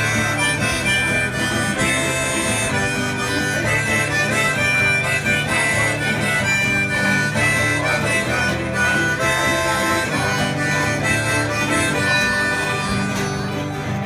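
Harmonica solo played into a cupped vocal microphone, with acoustic guitar accompaniment underneath.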